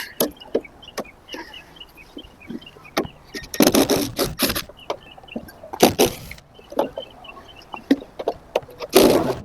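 Cordless impact driver backing out old screws from an RV roof cap, in several short bursts (about a second each) with clicks between them.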